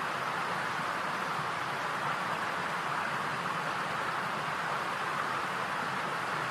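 Steady, even hiss with no distinct events, unchanged from start to finish.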